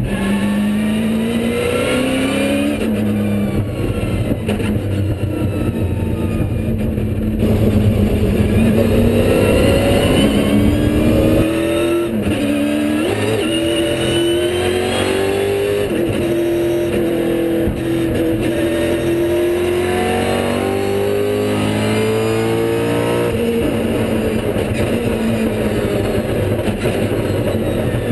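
Holden Commodore V8 Supercar's V8 engine heard from inside the cockpit while lapping, its note climbing under acceleration and dropping in steps at gear changes and lifts several times.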